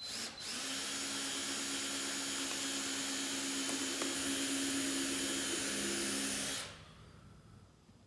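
Power drill running steadily for about six seconds, boring a pilot hole into the wooden board of a hive box so the board won't split when the screws go in, then stopping.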